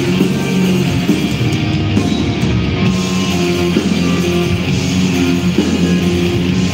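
Black metal band playing live: electric guitars and drum kit in a dense, sustained wall of sound, recorded from the audience.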